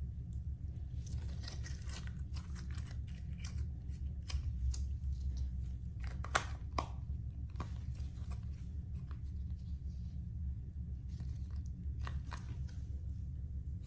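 Pink slime being stretched and squished by hand, giving off a run of small crackles and pops, with a few sharper clicks later on. A steady low hum runs underneath.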